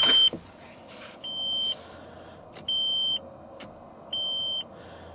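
Car's electronic warning chime beeping over and over, about every one and a half seconds, each beep a high steady tone of about half a second.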